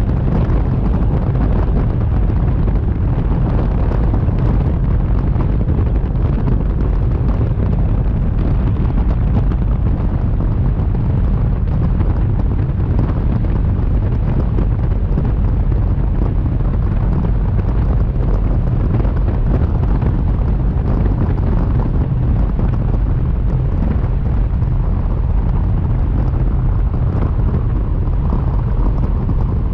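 Steady, loud rumble of airflow buffeting a camera mounted under the wing of a light aircraft in flight.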